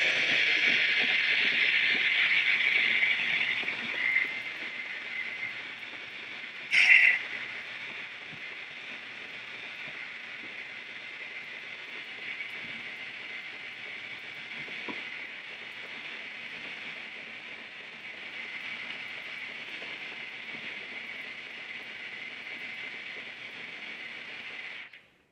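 Belt grinder sanding a resin and micarta knife handle: a steady hiss of the belt cutting, louder for the first few seconds, with a brief louder burst about seven seconds in. It cuts off just before the end.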